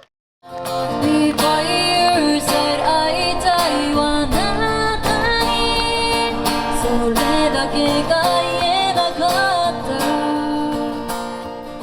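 Music led by strummed acoustic guitar with a melody line, starting after a brief silence and fading out near the end.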